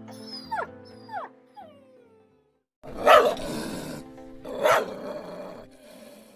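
A dog gives three short yelps that fall in pitch, then, after a brief pause, barks loudly twice about a second and a half apart, over steady background music.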